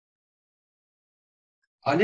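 Near silence with no audible room tone, until a voice starts speaking near the end.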